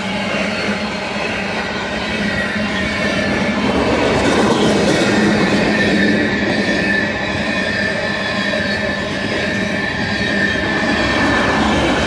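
Loaded freight train of tarp-covered gondola cars rolling past close by, a steady rumble and rattle of wheels on rail. A thin, high, steady squeal from the wheels runs through the sound.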